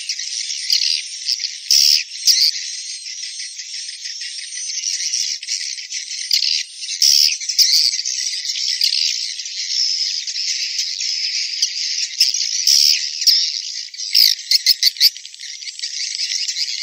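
Many swiftlets twittering and chirping in a dense, continuous high-pitched chatter, with a thin steady high tone running above it and a quick run of louder chirps near the end.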